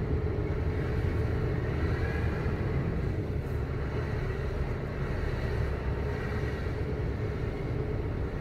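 Steady low rumble of a lorry's running engine, unchanging throughout.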